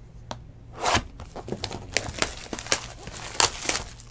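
Trading-card pack wrapper being torn open and crinkled by hand: a run of sharp crackles, loudest about a second in and again near the end.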